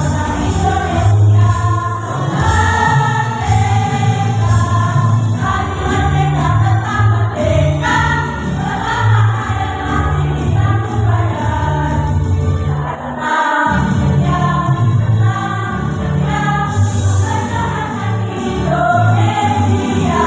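Women's choir singing a song in unison over instrumental accompaniment with a steady bass line. The bass drops out for a moment about two-thirds of the way through.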